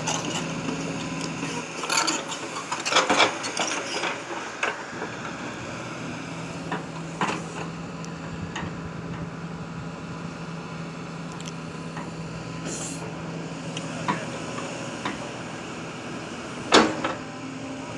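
Excavator engine running with a steady drone, with sharp knocks and scraping scattered through, the loudest knocks about two seconds in, around three seconds in, and near the end.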